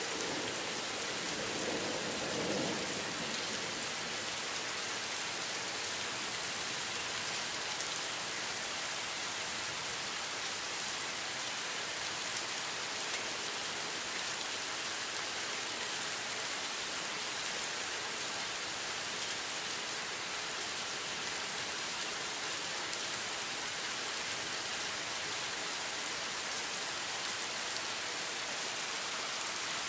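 Thunderstorm rain falling steadily, an even hiss of rain on surfaces.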